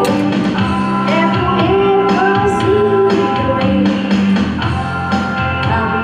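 A woman singing karaoke into a handheld microphone over a loud pop-rock backing track.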